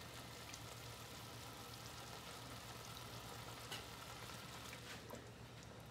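Marsala wine sauce with mushrooms simmering in a cast-iron skillet: a faint, steady sizzle, with a few light clicks in the second half.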